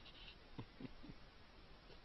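Near silence: faint background noise, with three faint, short sounds sliding down in pitch about halfway through.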